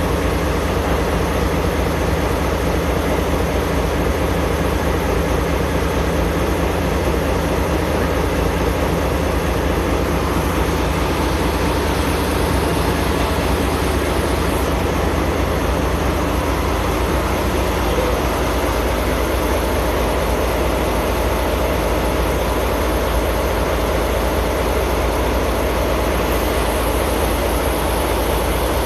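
Diesel locomotive's engine idling steadily, a constant deep rumble, while the train stands at the platform.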